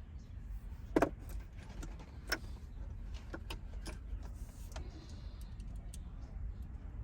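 Scattered metal clinks and taps from bolts and tools being handled, the loudest about a second in and another a little after two seconds, over a low steady rumble.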